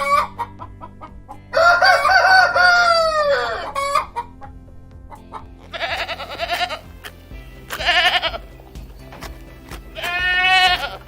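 A rooster crowing: one long cock-a-doodle-doo whose pitch drops at the end, then three shorter calls a couple of seconds apart, over quiet background music.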